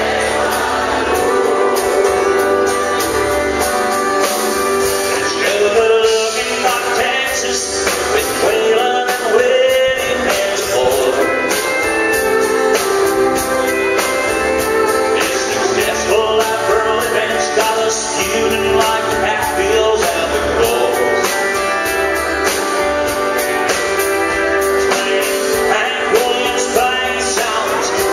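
Live country band playing: a man singing a melody over strummed acoustic guitar, pedal steel guitar and a steady drum beat.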